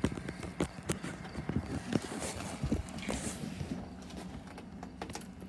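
Irregular taps and knocks with a short rustle about two seconds in, dying down after about four seconds: handling noise as the phone filming is moved about.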